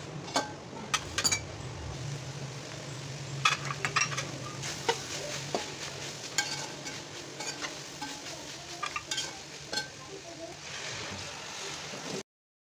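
Minced mutton keema sizzling and frying in a metal pot while it is stirred, the spatula scraping and clacking against the pot's sides in irregular sharp knocks. The sound cuts off suddenly near the end.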